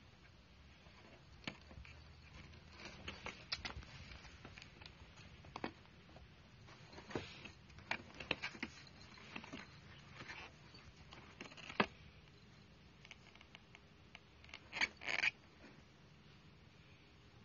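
A cat's paws scratching and batting at a flattened cardboard box: scattered scrapes, rustles and taps on the cardboard, with a sharp tap about two-thirds of the way through and a short pair of louder scrapes near the end.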